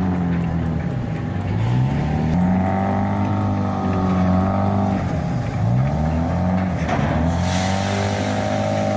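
Engine running hard, its pitch dropping and climbing back several times as it is throttled down and up again.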